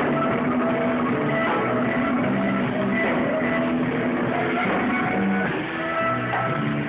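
A live band playing: drums and hand percussion, electric guitar and saxophone, one continuous passage.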